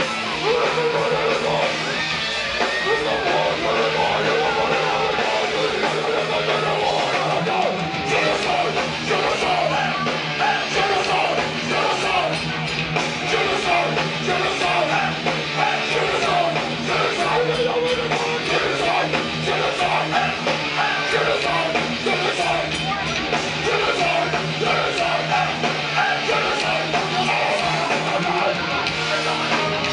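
Heavy metal band playing live: distorted electric guitars and drums at full volume, heard from within the crowd.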